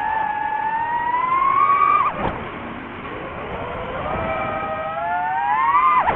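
DJI FPV drone's motors and propellers whining, the pitch climbing steadily as the throttle rises, then falling sharply about two seconds in, climbing again and falling sharply once more near the end.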